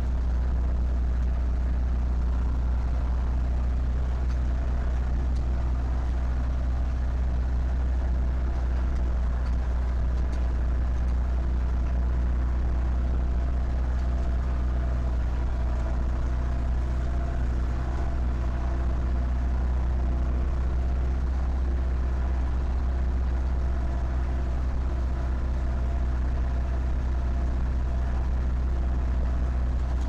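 Zetor 7011 tractor's four-cylinder diesel engine running steadily at low speed while driving, heard from inside the cab as a deep, even hum.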